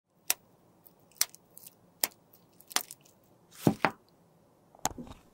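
A series of sharp clicks and taps from small hard objects being handled, about one a second, the loudest a quick pair a little past the middle.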